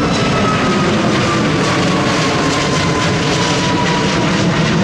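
Jet airliner passing close by: its engines run with a steady roar and a high whine that slowly falls in pitch as the aircraft goes past.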